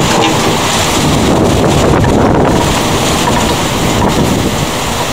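Thunderstorm rain and wind in a steady, loud rush, with wind buffeting the microphone.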